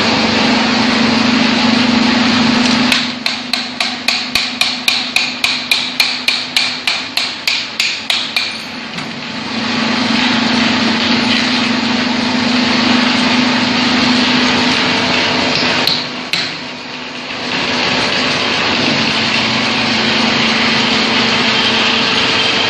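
A quick run of about twenty sharp, ringing metal-on-metal strikes, three to four a second, on the steel core tube as drill core is knocked out into a core box, with two more strikes about midway. Under them the hydraulic drill rig's power unit runs with a steady hum.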